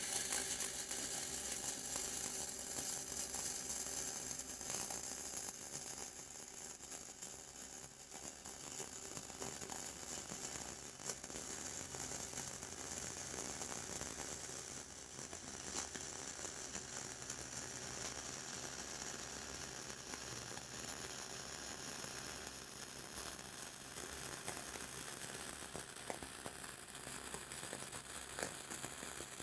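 Flux-core wire-feed welding arc running steadily on a steel pipe joint with 0.045-inch flux-cored wire: a steady hiss with scattered sharp pops. This is the first cap pass on a 6G pipe weld.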